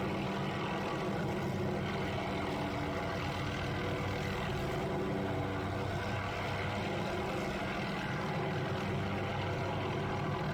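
Helicopter carrying a hanging aerial tree-trimming saw, running steadily and heard from a distance as an even drone made of several level tones.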